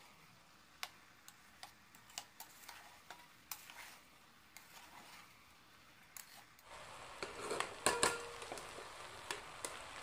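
Metal spoon stirring rice and vegetables in a pressure cooker, scraping and clinking against the pot as the rice is fried, with a light sizzle. The stirring gets louder about two-thirds of the way in, with the sharpest clinks near eight seconds.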